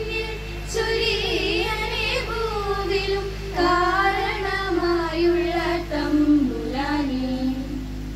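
A female voice singing a slow melody solo, with a steady low hum underneath.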